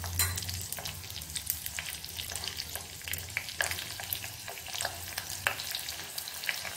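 Green chillies and strips of ginger frying in hot oil in a small tadka pan: a steady sizzle scattered with many small crackling pops, while a spoon stirs them.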